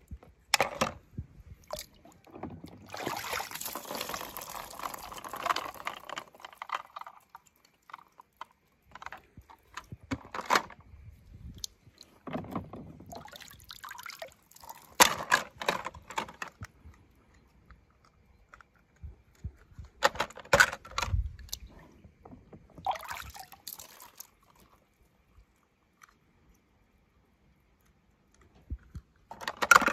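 Water splashing, pouring and dripping as small toy cars are dipped into and lifted out of a shallow tub of water by hand. It comes in several separate bursts with quiet gaps between, and short clicks among them.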